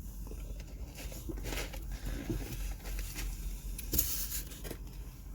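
Low steady rumble inside a car, with faint rustling and one sharp click about four seconds in.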